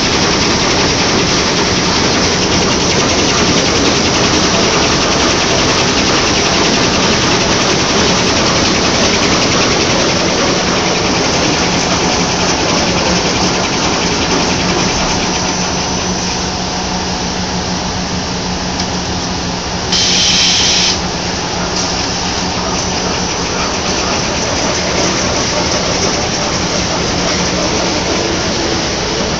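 Tissue paper production machinery running with a loud, continuous mechanical noise and a steady hum. About twenty seconds in, a short hiss lasts about a second.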